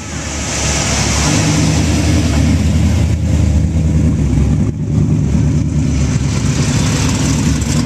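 Loud, deep engine note of big-engined cars cruising past at low speed. It is led by a supercharged V8 in an early Ford Mustang passing close by.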